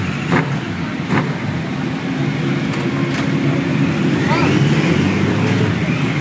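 Several superbike engines running together at idle, with one revving up about four seconds in.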